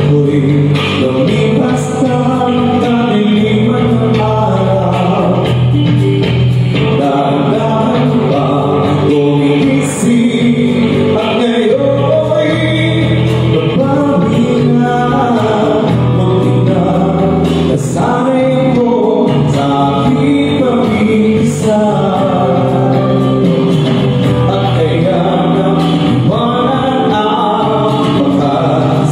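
A man singing into a microphone through a PA system over instrumental accompaniment, one continuous melodic vocal line above steady low notes.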